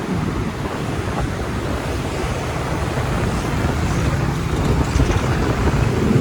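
Steady rumble of road traffic with wind buffeting the microphone; no horn is sounding.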